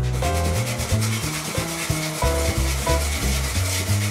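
Hand wire brush scrubbing back and forth on a steel motorcycle frame tube in quick repeated strokes, cleaning the frame for paint. Background music with a bass line plays under it.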